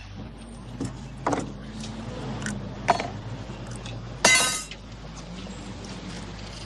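Metal latches of a leather-covered case clicking open: a few sharp clicks, then a louder ringing metallic clink about four seconds in, over a low steady hum.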